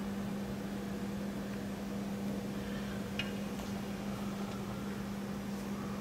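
Steady low hum with an even hiss, the room's background noise. A faint tick comes about three seconds in.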